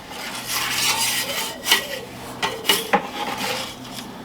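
Metal turning peel scraping and clinking in a wood-fired pizza oven as the pizza is turned, with a few sharp clinks between about a second and a half and three seconds in.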